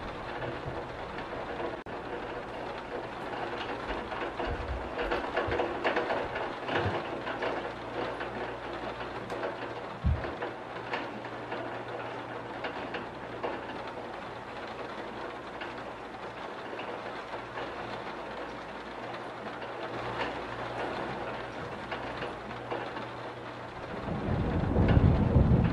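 Steady rain falling, with low rumbles near the start and a louder rumble building near the end.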